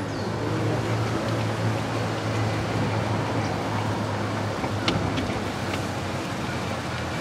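Golf cart driving along a paved road: a steady low motor hum with wind and tyre noise, and a couple of light rattles about five seconds in.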